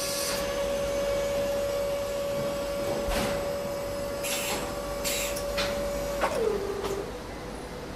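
Intro sound effect: a steady machine-like whine over a hiss, with a few short whooshes midway. About six seconds in, the whine drops in pitch and winds down.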